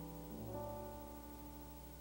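Grand piano playing a slow jazz passage. A new chord is struck about half a second in and left to ring and fade.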